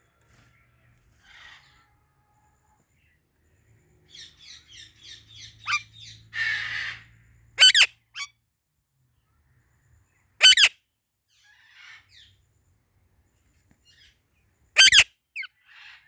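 Ringneck parrot calling: a quick run of chirps, then a harsh rasping squawk, then three loud shrill screeches a few seconds apart.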